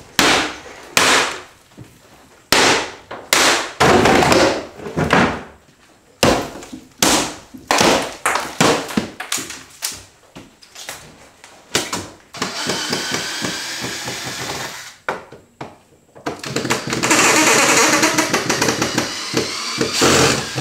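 Hammer blows and cracking wood as wooden upper kitchen cabinets are broken apart, with many separate sharp knocks for the first dozen seconds. After that come two longer stretches of steady scraping noise, the second louder.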